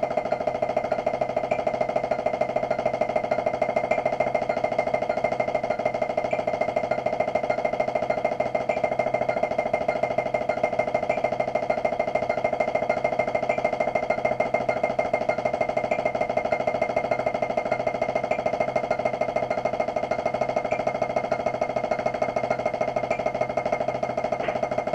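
Drumsticks playing a fast, even, unbroken stream of finger-driven strokes on a drum practice pad, each stroke a short pitched tap.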